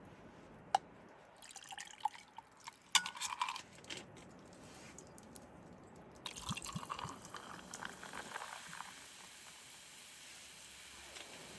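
Liquid splashing and dripping in two short spells during camp cooking, with a sharp click about a second in.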